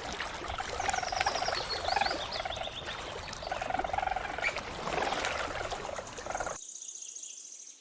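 Otter calling with a series of short chirps and squeaks, over a faint watery background hiss.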